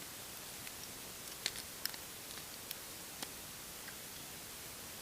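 A few faint, short clicks and taps of small plastic Bionicle pieces being handled and fitted together, spread over the first three seconds, above a steady hiss.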